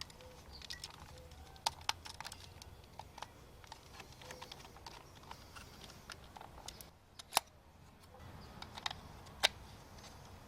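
Light plastic clicks and taps of an original Apple Macintosh M0100 mouse being put back together, its shell halves handled and fitted onto their clips. The clicks are scattered, and the sharpest comes about seven seconds in.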